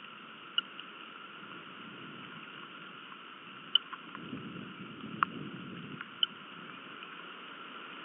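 Steady rain hiss on a nest-camera microphone, with a few sharp ticks of drops landing close to it and a short low rumble midway.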